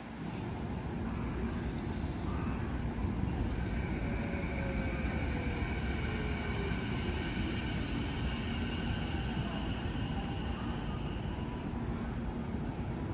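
Sanyo Electric Railway 6000 series electric train pulling into the platform and braking: steady wheel-on-rail rumble, with its IGBT-VVVF inverter whine falling in pitch as it slows.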